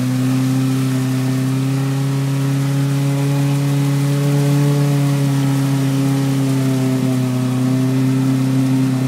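Car engine held at steady, raised revs, one continuous drone whose pitch climbs a little around the middle and eases back near the end.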